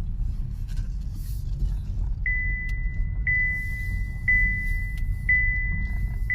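Low road and tyre rumble inside a moving car's cabin. About two seconds in, the seatbelt reminder chime starts: a single high beep repeating about once a second.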